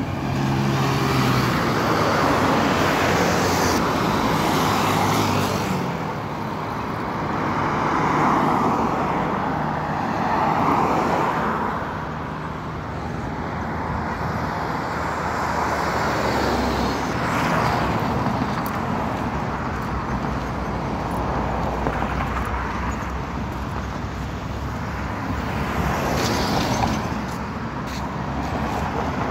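Highway traffic: cars and minibuses passing close by one after another, the tyre and engine noise swelling and fading with each vehicle, over a continuous road noise.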